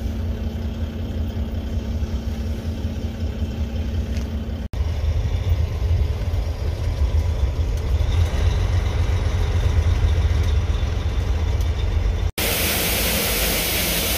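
Semi truck's diesel engine running low and steady, heard from inside the cab as it creeps up to the grain elevator. Near the end this gives way to a loud steady hiss of wheat pouring from the hopper trailer's open gates into the elevator's grated dump pit.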